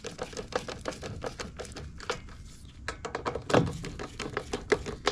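Hand tools clicking and knocking against a mower's plastic cover as its bolts are tightened by hand, a quick irregular run of small clicks and taps with one louder knock about three and a half seconds in.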